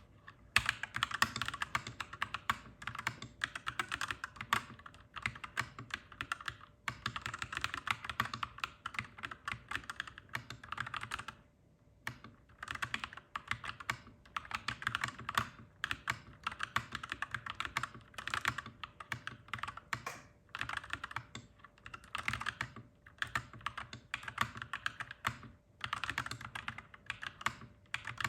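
Clacky mechanical keyboard being typed on in quick, continuous runs of keystrokes, with short pauses between bursts and a longer break about twelve seconds in.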